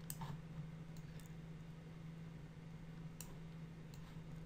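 Several computer mouse clicks, about four, with a few seconds between the last two, over a steady low hum.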